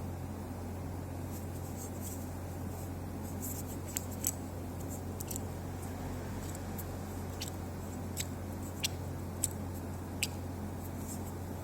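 Scattered sharp light clicks, half a dozen or so from about four seconds in, over a steady low hum.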